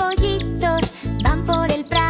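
Upbeat children's music with a bouncy melody over a steady bass and beat.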